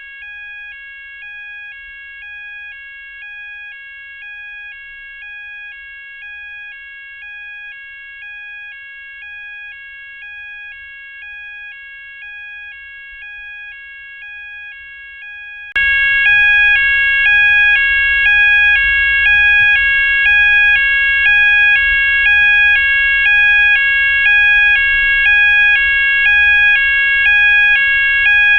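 Electronic fire alarm sounder tone: a steady high tone under a two-tone pattern that repeats about once a second. It gets much louder about 16 seconds in.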